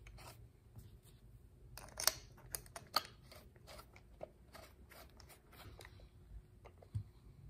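Light clicks and taps of metal and plastic parts being handled as a Briggs & Stratton twin-barrel carburetor is lined up on its plastic intake manifold and its bolts are started with a nut driver. The clicks are scattered, with a cluster about two to three seconds in.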